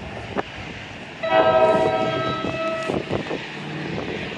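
Locomotive air horn sounding one blast of about a second and a half, a chord of several tones, from the train approaching along the track.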